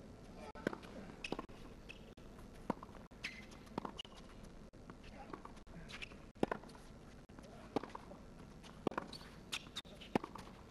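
Tennis ball being struck by rackets and bouncing on a hard court during a point: sharp pops at uneven intervals, about one every second or so.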